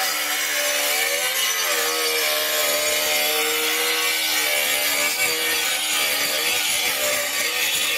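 Milwaukee angle grinder cutting through a clay roof tile, running steadily under load, its whine wavering as the disc bites into the tile.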